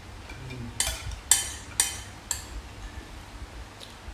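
Metal spoons clinking and scraping against ceramic bowls and plates during eating: four sharp clinks about half a second apart in the first half.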